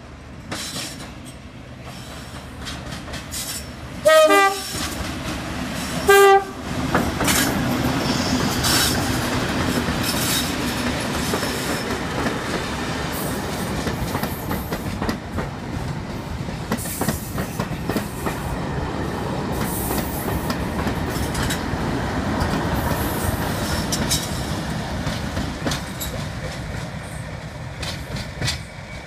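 Class 37 diesel locomotive sounds two short horn blasts about two seconds apart, the second lower. The test train then passes close by with its English Electric diesel engines running hard and the wheels clicking over the rail joints, easing off near the end.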